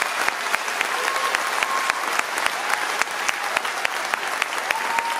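Audience applauding, many separate claps standing out in the steady clapping.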